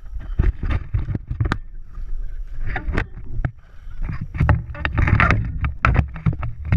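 Irregular knocks, bumps and rustling over a low rumble, the handling noise of a body-mounted GoPro being jostled, with some wind on the microphone.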